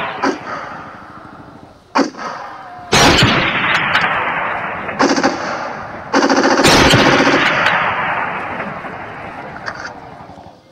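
Simulated gunfire in a staged massacre reenactment: several sudden loud bangs and a rapid rattling burst about six seconds in, each bang trailing off slowly.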